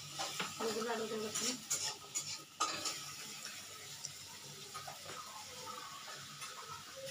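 Fingers mixing rice and curry on a plate while eating by hand: soft scraping with scattered clicks and clinks of the dishes.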